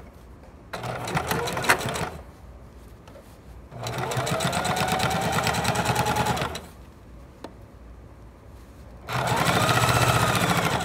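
Electric sewing machine running a straight seam through two layers of trouser fabric in three short runs of stitching with pauses between them, its speed rising and falling within each run.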